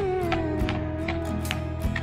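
Background music: sustained chords with a lead note that slides down near the start and then holds, over light percussive hits.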